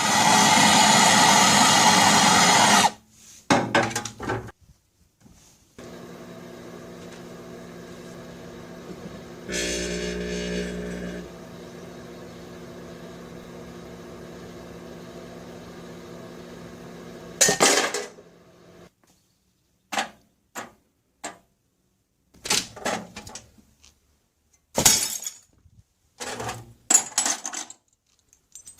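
A microwave oven running with a steady hum, louder for a moment about ten seconds in, stops about 17 seconds in; a series of short glassy clinks follows. The first few seconds hold a loud burst of noise that cuts off suddenly.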